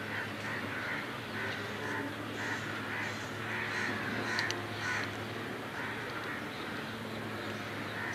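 Crows cawing over and over, about two calls a second, several birds calling at once.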